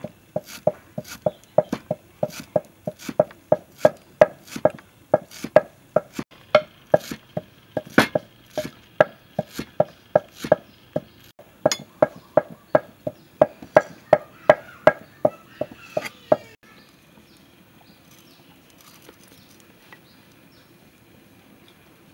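Steel cleaver chopping fresh herbs on a thick wooden chopping block: a steady run of sharp knocks, about three a second, stopping about sixteen seconds in.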